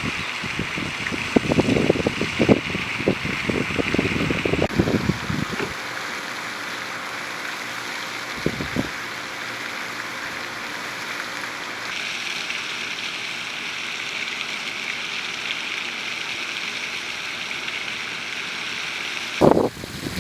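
Wind blowing steadily with a rushing hiss, its gusts buffeting the microphone with low rumbles over the first few seconds, briefly about eight seconds in, and again near the end. The hiss changes in tone abruptly twice.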